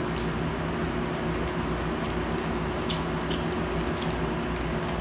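Steady hum of a room fan and air conditioner running, with a few light clicks of eating near the three- and four-second marks.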